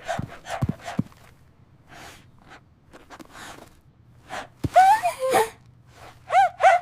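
A cartoon character's non-speech vocal sounds: short breathy gasps and sniffs, then pitched cries that glide up and down, ending in two short rising-and-falling cries.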